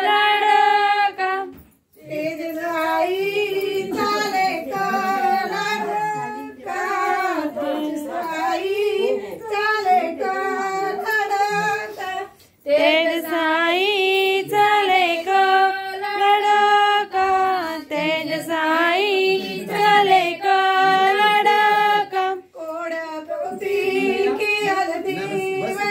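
A high female voice singing a melody with long held notes and no clear accompaniment. It breaks off suddenly twice, about two seconds and about twelve seconds in.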